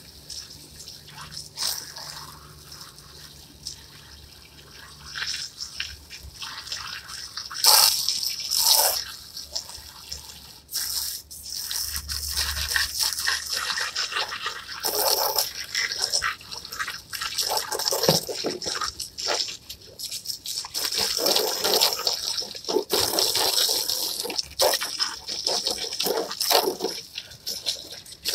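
Water spraying from a garden hose nozzle onto plastic patio chairs, splashing and spattering in uneven surges that grow steadier in the second half.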